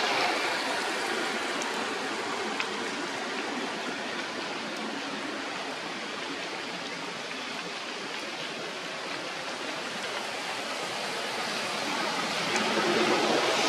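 Steady rushing outdoor noise, like running water, without breaks, growing a little louder near the end.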